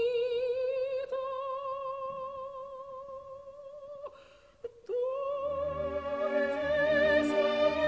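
Operatic soprano voice holding a long note with wide vibrato that slowly fades. After a short break about halfway through, she takes up a slightly higher note that swells as the orchestra comes back in beneath it.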